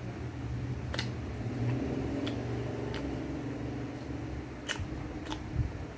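A person chewing food, with several short, sharp wet smacks of the lips and tongue, over a steady low hum.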